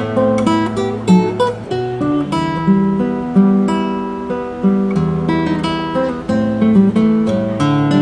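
Gotar G4s classical guitar with a solid spruce top, played solo fingerstyle: a flowing run of plucked notes and chords that ring on over one another.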